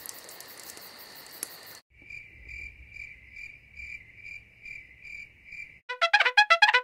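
Cricket chirping sound effect: steady, evenly spaced high chirps about two and a half per second, the stock 'crickets' cue for an awkward silence. It is preceded by a steady high ringing and ends in a quick run of short, sharp, high-pitched calls.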